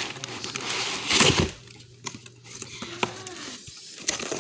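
Packaging rustling and crinkling as items are unpacked from a box, with a louder burst about a second in and quieter handling after.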